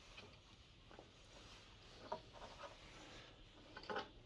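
Near silence with a few faint clicks and light rubbing from small parts and wire connectors of a diesel heater being handled and pulled apart.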